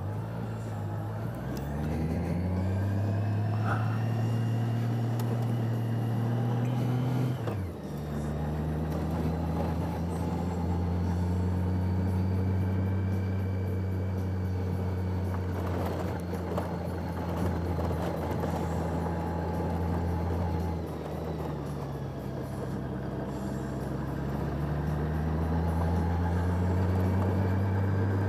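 Motorcycle engine under way, rising in pitch as it accelerates, with a sharp drop about seven seconds in like a gear change. It then runs steadily, eases off about two-thirds of the way through and picks up again near the end.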